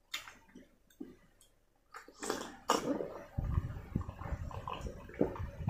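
A person drinking iced cola from a glass mug: a few small sips, then from about three seconds in, steady gulping and swallowing.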